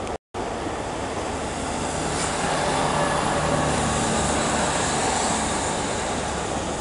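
First Great Western diesel multiple unit pulling out past the platform, its engine note and rolling noise swelling about two seconds in as it draws close. The sound cuts out for an instant near the start.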